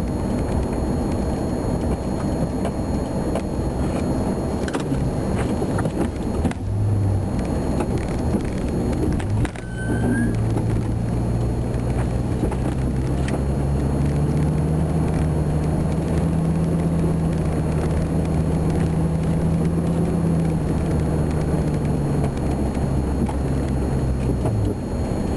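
Ford F-350 plow truck's V10 engine and drivetrain running, heard from inside the cab. From about ten seconds in, a steady low drone holds until just before the end, with light clicks and rattles throughout.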